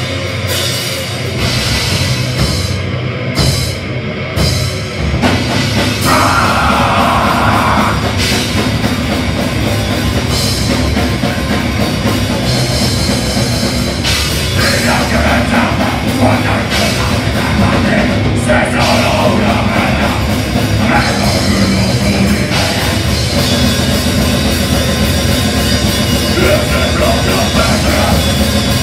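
A live heavy rock band playing loud: electric guitar through a Marshall amp, bass guitar and a Yamaha drum kit. The opening seconds are sparser, with short breaks, and the full band comes in hard about five seconds in.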